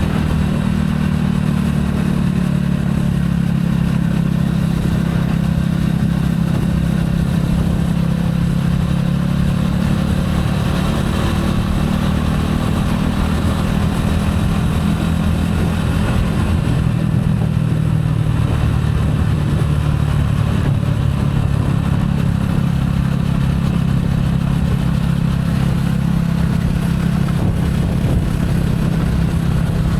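Gilera AC4 motorcycle engine running under way on the road, with a steady exhaust note. The engine eases off a little past halfway, then picks up again.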